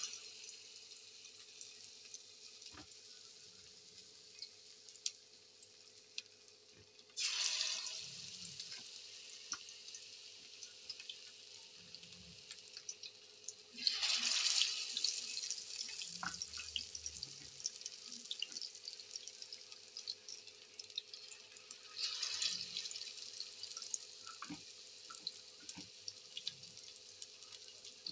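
Besan-battered fish pieces deep-frying in a pan of hot oil, a steady sizzle with constant small crackles. Three times, about 7, 14 and 22 seconds in, the sizzle jumps to a loud hiss as another raw piece goes into the oil, then settles back.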